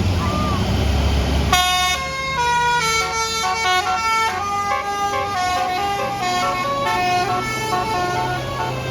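A bus engine running, then about a second and a half in a bus's basuri musical horn starts playing a quick melody of clear, changing notes: the 'telolet' horn tune.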